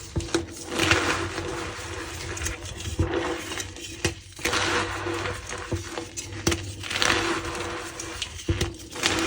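Reformed gym chalk blocks being crushed by hand, with a squeaky sound: repeated crunching and crumbling strokes a second or two apart, with sharp little cracks between them.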